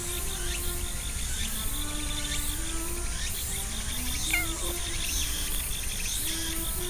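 Insects trilling in a rapid, even pulse over soft background music with slow, held notes. A little after four seconds in, the cat gives a short meow that falls in pitch.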